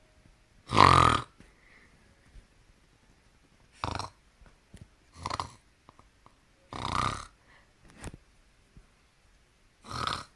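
A person snoring loudly: five heavy, throaty snores at uneven gaps of one to three seconds, the first the loudest and longest.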